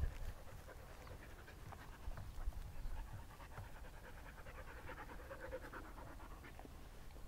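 Rough Collie puppy panting, a quick run of short breaths.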